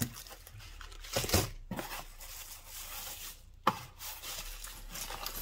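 Rustling and crinkling of plastic packaging and bubble wrap as a shrink-wrapped card of gearbox bearings and a cardboard box of parts are handled, with a few sharp knocks as parts are set down, the loudest about a second and a half in and near four seconds.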